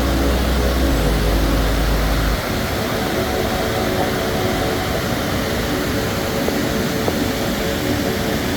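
Steady rushing of a waterfall over rock shoals. A deep rumble underneath drops away about two seconds in.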